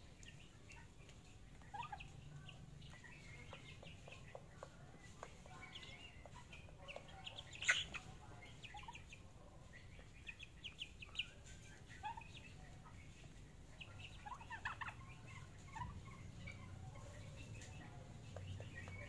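Young chickens and a young turkey peeping and chirping: short, faint high calls scattered throughout, with one sharp, louder sound about eight seconds in.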